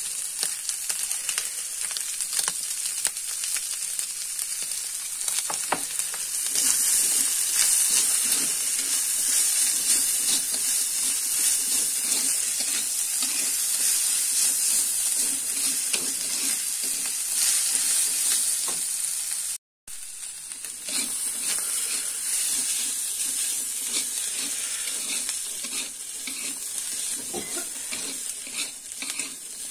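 Shredded chicken, sweet corn and petai stir-frying in a non-stick wok: a steady sizzle, with a metal spatula scraping and tossing the food against the pan again and again as the seasoning is mixed in. The sound drops out for a split second about twenty seconds in.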